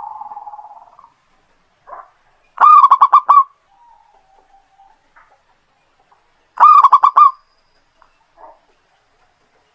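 Zebra dove (perkutut) singing: two loud phrases of rapid trilled coos, about four seconds apart, with a softer purring coo at the start and faint low notes between them.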